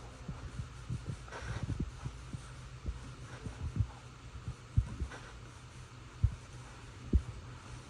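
Irregular low thumps and bumps over a steady low hum, with three sharper knocks in the second half and a brief soft swish a little over a second in, as a wool stain applicator is worked along deck spindles.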